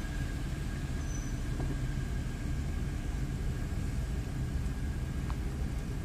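Car driving slowly, heard from inside: a steady low rumble of engine and road noise, with a faint steady high tone above it.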